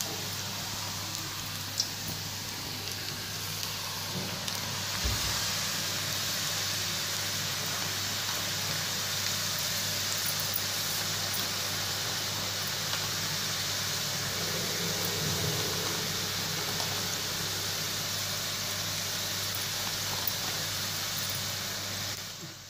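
Kai murukku (twisted rice-flour snacks) deep-frying in hot oil in a pan, a steady sizzle of bubbling oil that grows a little louder about five seconds in.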